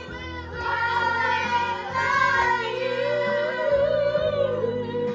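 A group of children and women singing together over a backing track, holding one long note through the second half.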